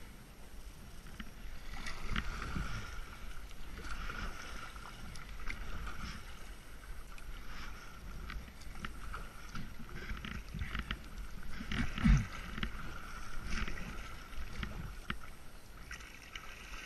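Kayak paddle strokes in calm river water: the blades splash in and drip, stroke after stroke. A single louder low thump comes about two-thirds through.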